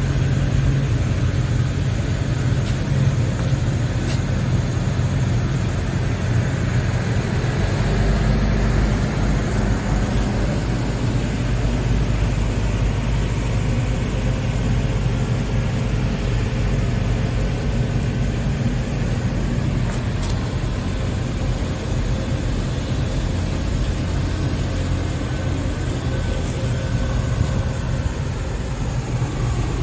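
Diesel engine of a Scania P380 truck idling steadily, a low, even sound with no change in speed.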